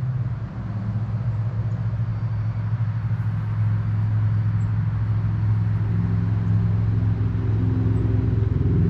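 Steady low motor drone, like an engine running, growing a little louder and fuller in the second half.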